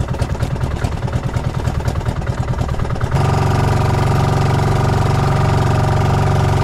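Engine running: a fast, uneven pulsing for about three seconds, then abruptly a louder, steady, even drone.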